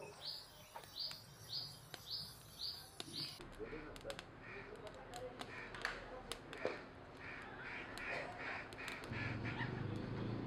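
A bird calls over and over, about twice a second. After a few seconds sharp crackles from a wood fire of branches take over, with more bird calls scattered among them. Near the end a low rushing sound of the flames grows louder as the fire flares up.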